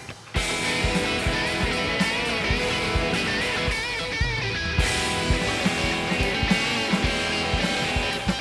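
Rock music with strummed electric guitar and a drum kit beat. It drops out briefly right at the start, then carries on steadily.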